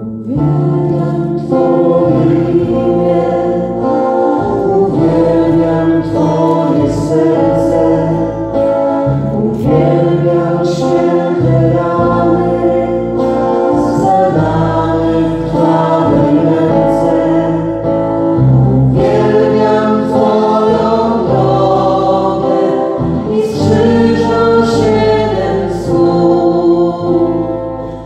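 Live worship song: several voices singing together into microphones, accompanied by keyboard and acoustic guitar.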